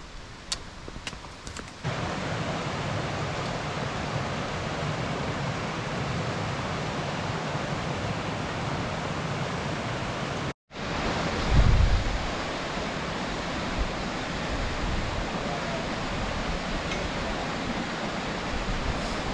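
Steady rushing noise outdoors, full of low rumble, starting suddenly about two seconds in. It breaks off briefly near the middle and returns with a louder low surge just after.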